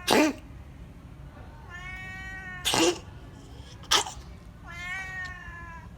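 A cat coughing in short, sharp hacks, three in all: one at the very start, the loudest, then two more about a second apart in the middle. Between them the cat gives two drawn-out meows. The uploader tags the cat as asthmatic.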